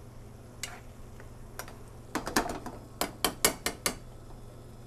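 Metal spoon clinking and knocking against a metal sauté pan as shrimp in a thick tomato sauce are stirred. A few scattered clinks are followed, about three seconds in, by a quick run of five sharp knocks.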